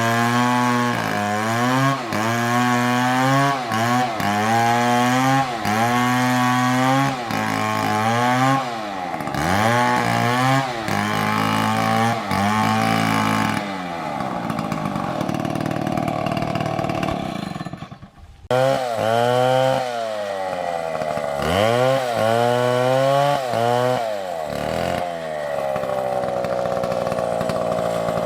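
Large Stihl chainsaw cutting into a tree, its engine pitch sagging and recovering about every second and a half as the chain bites under load. A little past halfway it drops away for a moment, then picks up and resumes cutting, ending in a longer steady high run.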